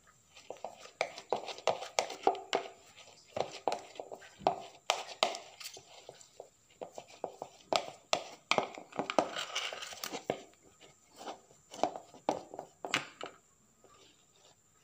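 Metal spoon stirring a stiff bait dough of ground fish pellets and egg in a plastic bowl: irregular scraping and knocking against the bowl, quieter in the last second or so.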